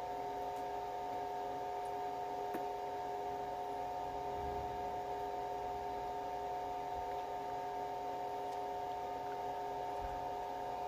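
Steady hum made of several held tones, with one or two faint clicks.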